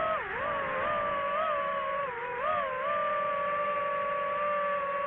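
DJI FPV drone's motors and propellers whining, the pitch dipping and rising with throttle changes, then holding steady from about three seconds in.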